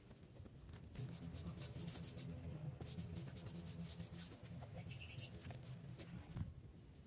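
Paintbrush brushing paint onto weathered wooden fence pickets, in a run of repeated strokes that starts about a second in and stops near the end, with one short knock just before it stops.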